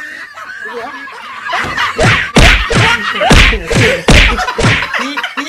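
A rapid series of loud thuds and smacks, about eight in three seconds, with voices in between.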